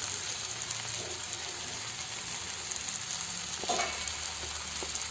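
Onions, tomato and garlic frying in sesame oil in a pan, a steady sizzle, with a faint knock a little over halfway through.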